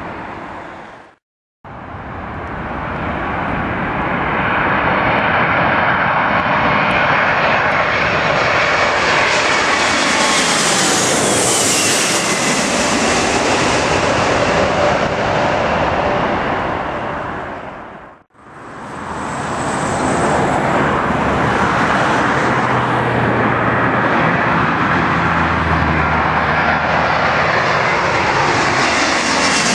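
Jet airliners on final approach passing low overhead, mainly a four-engined Boeing 747-400: a broad jet roar that swells to a peak about midway through, with an engine whine that bends in pitch as it passes, then fades. The sound cuts out abruptly twice, and a twin-engined airliner's roar builds near the end, with wind rumbling on the microphone.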